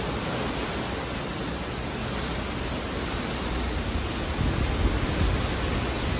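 Hurricane rain and wind: a steady, even rush of heavy rain with a fluctuating low rumble underneath.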